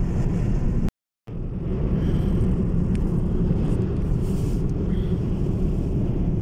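Steady low rumble of road and wind noise inside the cabin of a Ford Focus 3 estate cruising on the highway in strong gusting wind. The sound cuts out for a split second about a second in.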